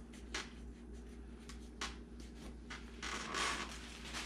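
A knife trimming cartilage from a coyote hide's ear: a few short soft clicks and scrapes, then a longer rustle of a plastic sack about three seconds in as the trimmed cartilage goes into it, over a steady low hum.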